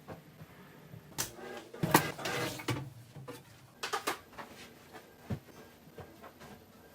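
Household objects being handled and set down: a few scattered knocks and clicks, with a short burst of rustling and clatter about two seconds in.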